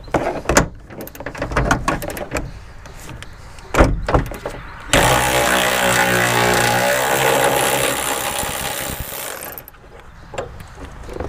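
A few clicks and knocks as a socket is fitted onto a 17 mm seat-belt anchor bolt. Then, about five seconds in, a cordless electric ratchet runs steadily for about five seconds, spinning the bolt out, and stops.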